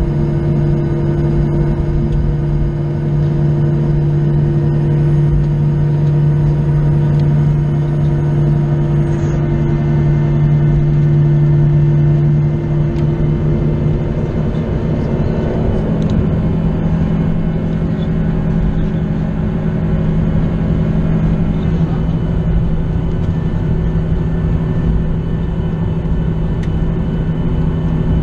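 Boeing 737-800's CFM56-7B jet engines heard from inside the cabin while taxiing: a steady hum and rush with several held tones. A high whine glides down and fades about nine seconds in, and the low hum shifts up in pitch about fifteen seconds in and again a few seconds later.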